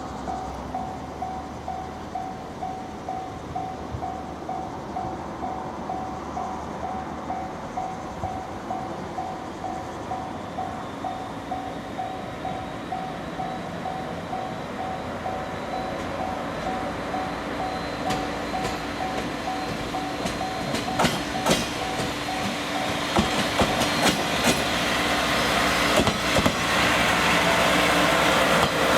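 Japanese level-crossing warning bell ringing steadily, about two strikes a second, as a train approaches. The train's rumble and the clatter of its wheels over the rail joints grow louder from about halfway and cover the bell near the end.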